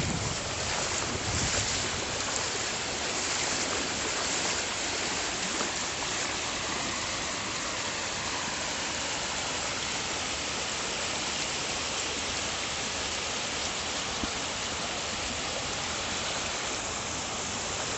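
Muddy floodwater rushing across a submerged road and spilling over its edge in a foaming current, a steady, even rushing.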